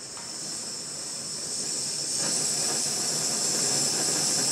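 Peak gas canister stove burner hissing steadily, growing louder about two seconds in; quite loud.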